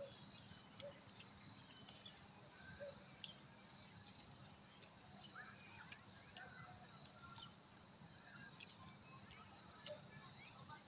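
Crickets chirping faintly: a high, steady trill of evenly repeating pulses.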